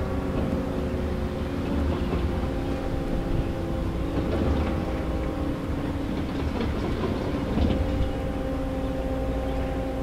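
Sentry 40V2T outdoor warning siren sounding a steady tone, several pitches held together.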